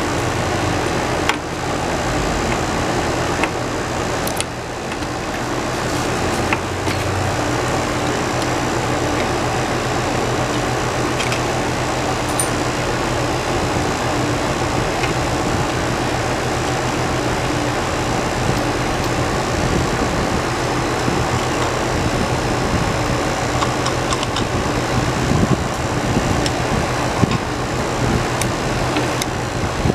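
Outdoor air-conditioning condensing unit running: a steady compressor and fan hum, with a few light metallic clicks and taps from tools at the service valves.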